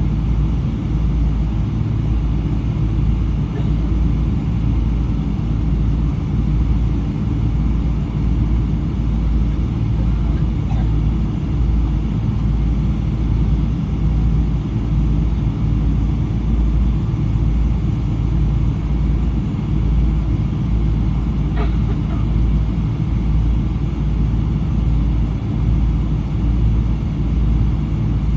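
Steady, loud cabin drone of a Boeing 777-300 with Rolls-Royce Trent 800 engines: a deep, even rumble of engines and airflow heard from a rear-cabin window seat.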